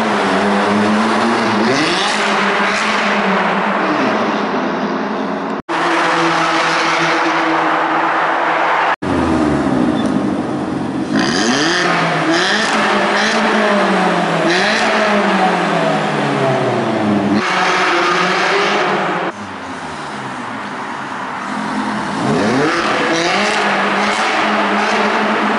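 Vauxhall Corsa with its centre exhaust silencer removed, loud exhaust note revving and accelerating past under a road bridge, several passes cut together. The pitch climbs and falls back repeatedly as at gear changes, and the sound breaks off abruptly twice where the clips are joined.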